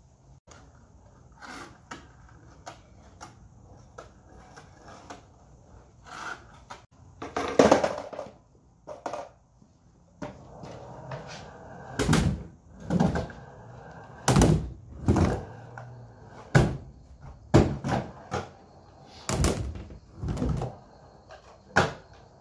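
Skateboard on soft Spitfire Soft Sliders 93a wheels rolling over a concrete garage floor, with a low rumble under sharp clacks and thuds of the board hitting the ramps and landing. One loud knock comes about seven seconds in. About ten more come in quick succession through the second half.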